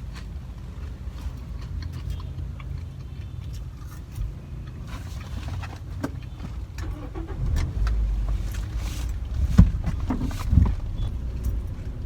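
Car idling, heard from inside the cabin as a steady low rumble, with small clicks and rustles of things being handled and two louder knocks near the end.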